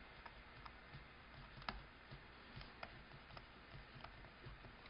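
Faint, irregular clicks and taps of a stylus writing on a tablet, over near-silent room tone; the sharpest tap comes about one and a half seconds in.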